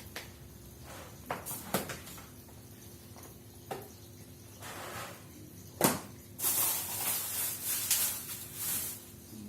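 Kitchen handling sounds: a few light knocks and clicks, a sharper knock about six seconds in, then a hissing rustle for about three seconds.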